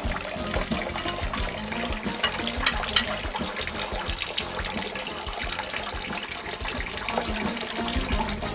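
Freshly pressed grape juice running and splashing in a steady watery rush, with a sharp tap about three seconds in.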